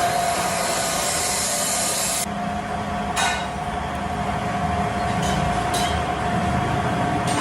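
Workshop machinery running with a steady whine, under a high hiss that cuts off abruptly about two seconds in, then a brief scraping stroke about a second later.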